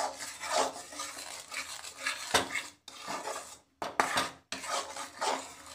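Metal spatula stirring and scraping against a metal kadhai, mixing cream and powdered sugar, in irregular strokes with a few short pauses.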